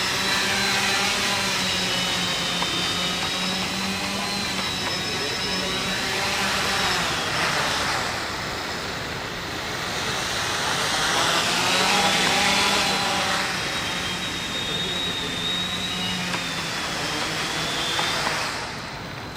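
Small electric drone motors spinning propellers: a steady high whine over an airy whoosh that wavers slightly in pitch and swells louder a couple of times.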